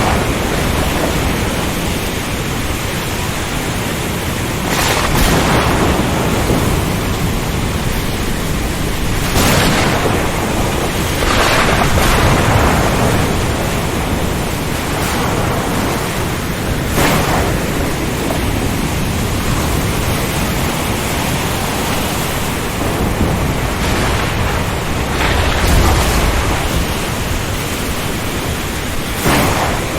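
Ocean storm: a steady, loud rush of wind, rain and surf, broken about five times by sudden sharp cracks of thunder.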